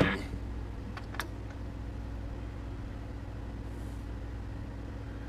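Steady low electrical hum from the bench equipment, with two light clicks about a second in.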